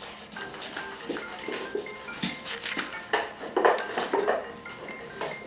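Marker scribbling back and forth on paper, colouring in a large area in quick, rapid strokes that thin out after about three seconds.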